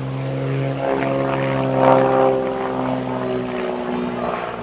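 Aviat Pitts S-2C aerobatic biplane's propeller and engine droning in flight, loudest about two seconds in, with the pitch sinking slowly as it passes.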